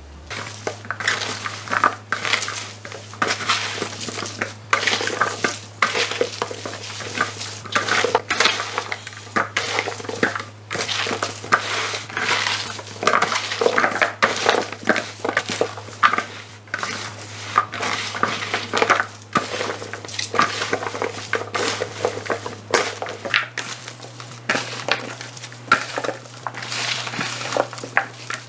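Fresh mustard greens and cut vegetables being tossed and squeezed by hand with chili powder seasoning in a large plastic basin: a continuous irregular rustling, squishing and crunching of the leaves and stalks, with light knocks against the basin.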